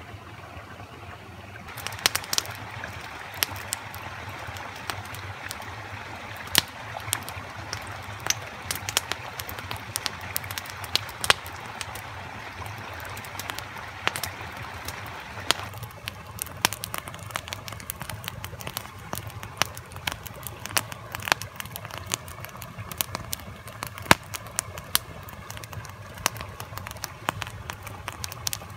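Wood campfire crackling, with frequent sharp irregular pops over a soft steady hiss that thins out about halfway through.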